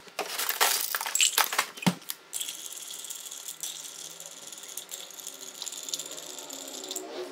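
Ice cubes dropped into a glass mixing glass, a run of separate clinks over the first two seconds. Then a bar spoon stirs the cocktail on the ice with a steady clinking swirl.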